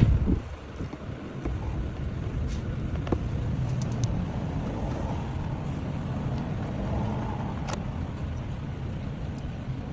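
A car engine running steadily with a low, even rumble, after a sharp knock right at the start.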